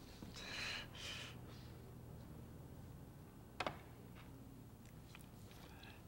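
A person eating with a fork: a few breathy sounds near the start, then a single sharp clink of the fork on the plate about three and a half seconds in, with faint mouth clicks near the end.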